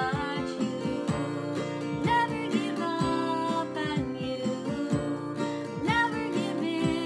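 Acoustic guitar strummed steadily with a woman singing over it.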